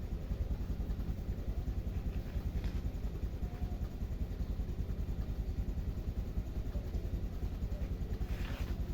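An engine running steadily with a fast, even low pulsing.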